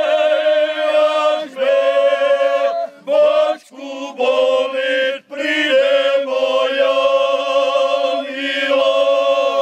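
Carpatho-Rusyn men's group singing a mowing song unaccompanied in multi-part harmony: long held chords over a steady lower voice, phrases breaking every second or two and ending in a downward slide.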